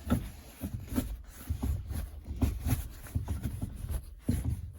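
VAZ-2115 gear shift lever being worked back and forth through the gears, giving a run of irregular clicks and knocks from the linkage. Its squeak is gone after the lever's hinge and bushing were lubricated with WD-40.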